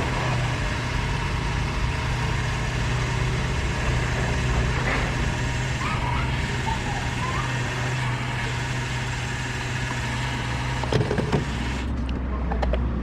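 Yamaha YZF 250 motocross bike's single-cylinder four-stroke engine running steadily at a low, even speed, with a couple of short knocks about eleven seconds in.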